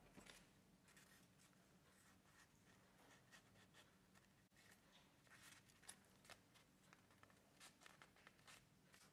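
Faint crinkling and crackling of A4 printer paper being folded and creased by hand, in small irregular crackles.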